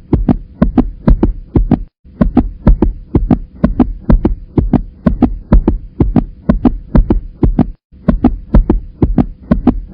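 Heartbeat heard through a stethoscope: a rapid, regular run of paired lub-dub thumps under a faint steady hum. The beat breaks off briefly about two seconds in and again near the end.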